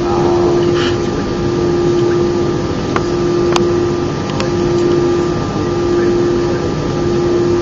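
Airbus A319 passenger cabin noise: a steady engine and airflow rush with a constant droning tone running through it, and a couple of faint clicks in the middle.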